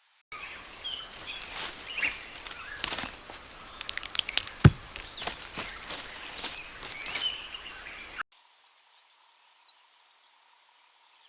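Wild birds chirping, mixed with a quick irregular run of sharp clicks and cracks and one louder knock about halfway through. The sound cuts in and out abruptly.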